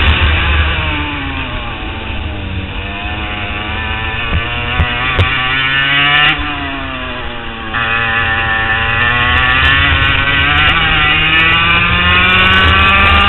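HPV 100 kart engine heard onboard, its revs falling, then climbing, then dropping sharply about six seconds in as the throttle is lifted, then rising steadily again through to the end. A few sharp pops come just before the drop.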